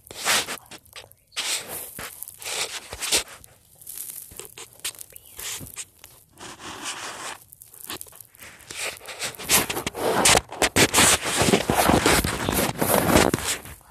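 Handling noise from a phone held close: fabric rustling and scraping against the microphone in irregular bursts, becoming louder and more continuous for the last few seconds as the phone is moved about.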